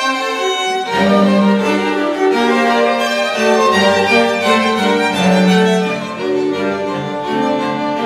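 Instrumental music for bowed strings: violins over cello and bass lines, the low notes coming in about a second in.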